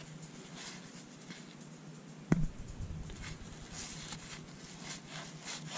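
1981 Fleer baseball cards being slid and shuffled through by hand: soft papery rustles and swishes, with one sharp knock about two seconds in.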